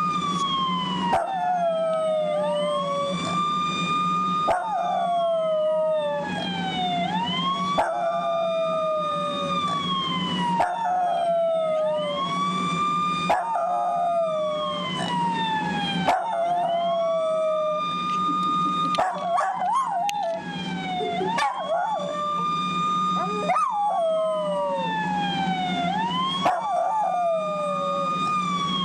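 Police siren recording wailing, rising and falling about every two and a half seconds, with a dog howling along to it, most plainly a little past the middle.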